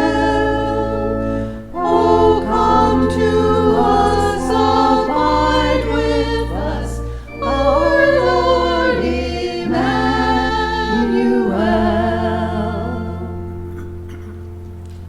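Church choir singing the closing phrases of a piece, ending on a long held chord that slowly fades away.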